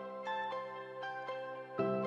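Instrumental background music: quick short notes over held chords, with a new chord coming in near the end.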